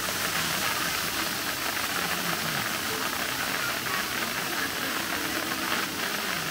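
A steady rushing hiss of running water, with faint voices underneath.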